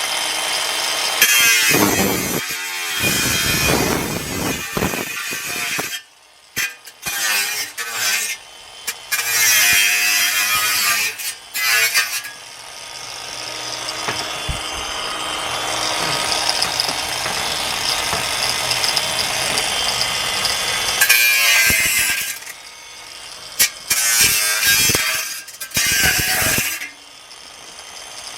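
Denali 20-volt cordless angle grinder running and cutting metal in several stretches, with short stops and restarts between them and one longer steady run in the middle.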